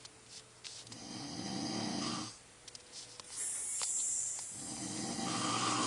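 A man snoring loudly: two long snores, the first starting about a second in and the second, longer one starting a little past halfway.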